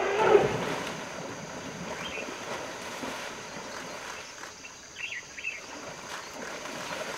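Water sloshing and splashing as an African elephant wades through a shallow river, with one loud short cry right at the start. Two faint high chirps come about five seconds in.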